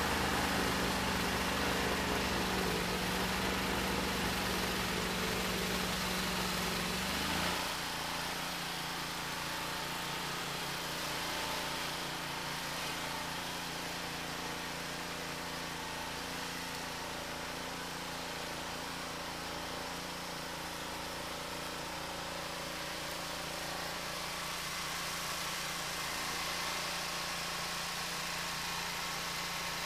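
ELIET Snowbob 9018T snow blower's engine running steadily as it clears and throws snow. Its sound drops suddenly about seven and a half seconds in, then carries on more quietly.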